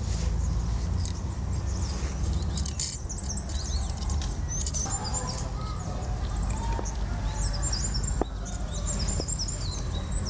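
Small birds chirping in quick runs of short, repeated high notes, over a steady low rumble. There is a sharp knock about three seconds in and another near eight seconds.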